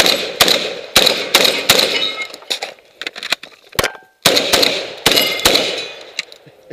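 Saiga 12 semi-automatic 12-gauge shotgun fired in quick strings, about ten shots with echoing tails, two or three a second. About two seconds in, the firing pauses for a moment, with only fainter sharp knocks and one shot, then resumes.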